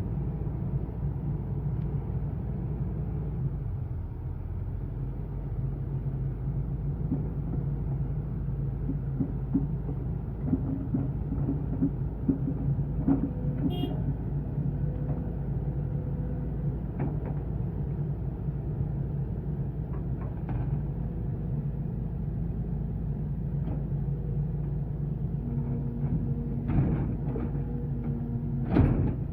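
Kobelco SK220 excavator's diesel engine running steadily under working load, with a higher hydraulic-sounding tone rising in and out and a few sharp knocks, the loudest shortly before the end.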